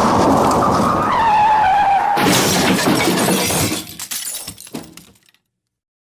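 Car crash sound effect: tyres squealing in a falling tone, then a sudden crash with shattering glass about two seconds in. Debris clatters and tinkles, dying away about five seconds in.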